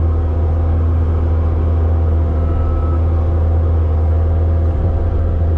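Engine of a bucket loader running steadily at a constant speed with a deep, even drone.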